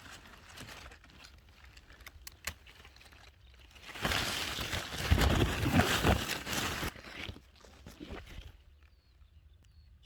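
Rustling and handling noise close to the microphone, with scattered small clicks, swelling to a loud rustle for about three seconds in the middle.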